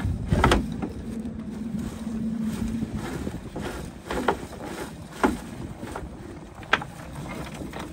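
Small fishing boat at sea: a steady wash of water and wind on the microphone, broken by four sharp knocks, one shortly after the start and three more in the second half.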